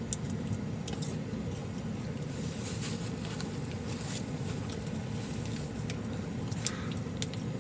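Steady low hum of a car heard from inside the cabin, with scattered small clicks and rustles over it.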